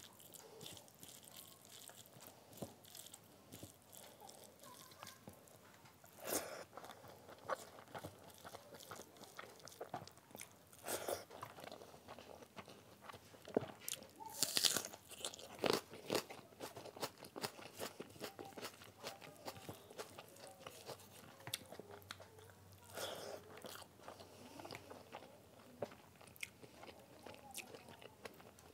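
Close-up eating sounds of rice and curry eaten by hand: fingers squishing and mixing rice on the plate, then biting, chewing and crunching mouthfuls. There are many small wet clicks and several louder bursts of crunching and chewing.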